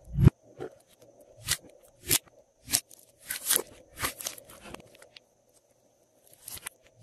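Thick glossy slime handled in a glass bowl. A heavy thud comes just after the start as the mass flops down, then a string of sharp, crunchy clicking pops as it is squeezed and stretched by hand, roughly one every half second, pausing briefly about five seconds in.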